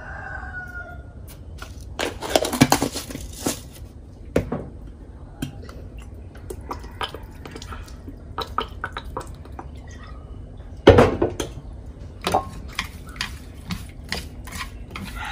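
Clinks and knocks of utensils and bottles against a metal pan while fish is seasoned, with a clatter a couple of seconds in and a loud knock about eleven seconds in. Near the end come quick clicks of chopsticks stirring the fish in the pan.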